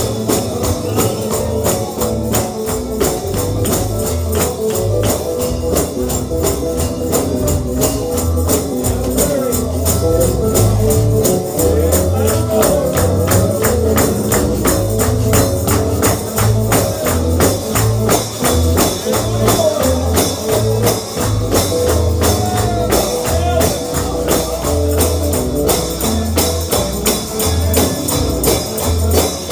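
Lively gospel shouting music, with a tambourine keeping a fast, steady beat over a moving bass line and other instruments.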